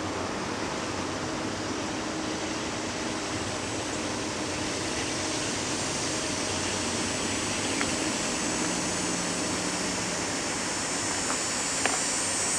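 Distant diesel freight train approaching, led by GE C40-9W locomotives: a steady low engine and rail rumble that grows slightly louder as it nears. A high, steady buzz comes in about halfway through and strengthens.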